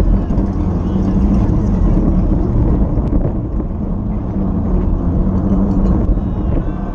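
Wind buffeting an action camera's microphone at racing speed on a fixed-gear bike, a steady low rumble with tyre and road noise underneath.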